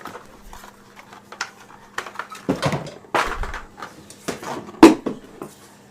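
Computer parts and packaging being handled: irregular clicks, knocks and rustles, the loudest a sharp click almost five seconds in, over a steady low hum.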